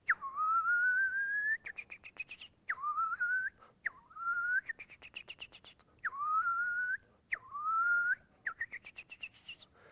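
A person whistling an imitation of the northern bobwhite's tick-tick call, the close-range covey alarm call: drawn-out whistles that dip and then slowly rise, alternating with quick runs of short ticking notes that climb in pitch. There are five long whistles and three runs of ticks.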